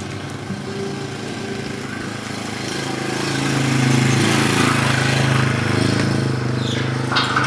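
A small engine running steadily. It grows louder to its loudest around the middle and then eases off.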